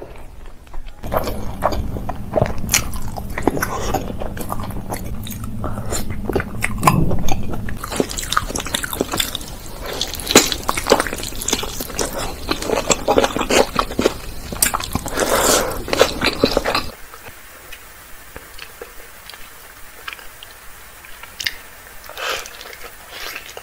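Close-miked eating sounds: biting into and chewing saucy chicken pieces and rice, with wet, clicky chewing noises. The sound changes character a few times and is much quieter for the last several seconds.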